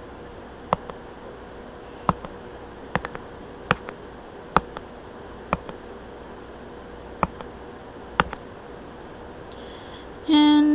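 Computer mouse clicking: about nine sharp single clicks at uneven intervals, as keys are pressed one at a time on an on-screen calculator.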